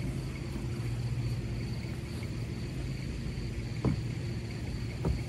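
Steady low background hum, with two dull knocks about four and five seconds in: a person's feet and weight shifting on the plastic hull of a Lifetime Yukon fishing kayak while standing up in it.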